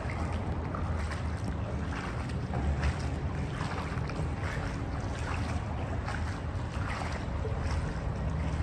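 Steady low rumble with a hiss over it: the ambient noise of a concrete underpass.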